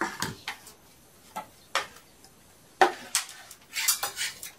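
Metal bar clamp clinking and clicking as it is handled and fixed onto a brick wall: a few sharp clicks in the first two seconds, then a busier run of clanks in the last second and a half.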